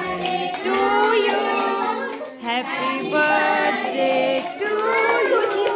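Singing with music, the voices high like children's, several lines of melody at once with held notes.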